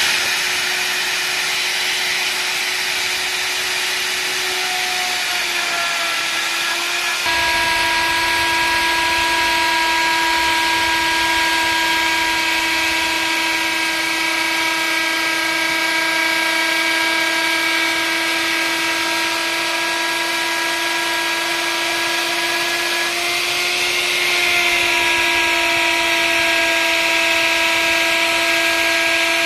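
Prescott electric plunge router running at speed with a steady high whine, its bit cutting into wood. The sound steps up in loudness about seven seconds in, and the pitch shifts slightly again about twenty-four seconds in.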